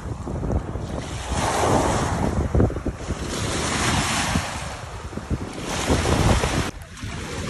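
Wind buffeting the microphone in gusts over lake waves washing onto the shore, with a brief lull about seven seconds in.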